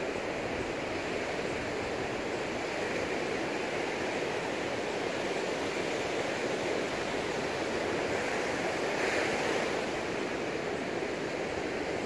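Sea surf breaking and washing up a sandy beach, a steady rushing wash with a louder wave about nine seconds in.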